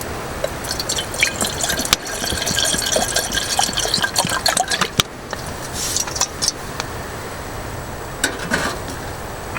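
Water being poured into a pot for tea, a steady splashing pour for about four seconds, then a shorter pour and a brief trickle later on.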